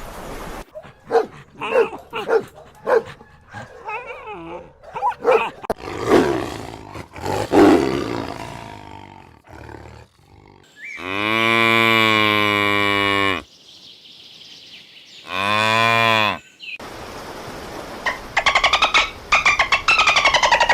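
A string of animal calls: a big cat's grunts building to a roar, then two long steady cow moos, then a fast trembling call near the end.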